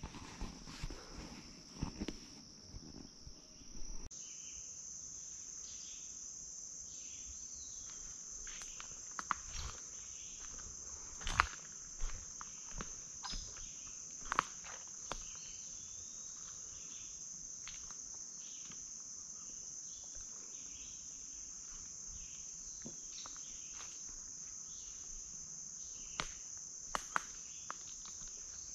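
Steady high-pitched drone of insects in summer woodland, with scattered short rustles and snaps on top.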